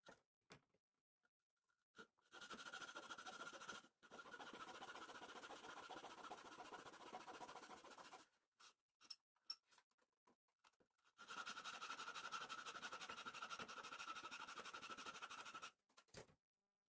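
Fine-toothed hand saw cutting into a thin wooden bulkhead frame of a model ship hull, in quick continuous strokes. It saws for about six seconds, stops for a few seconds with a few small clicks, then saws again for about four and a half seconds.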